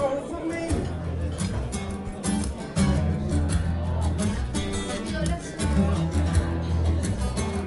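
Acoustic guitar strummed live and amplified through PA speakers, with a full, deep low end.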